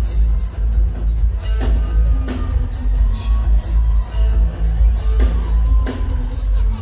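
Live reggae band playing: drum kit, electric guitars and keyboards over a deep bass, which is the loudest part.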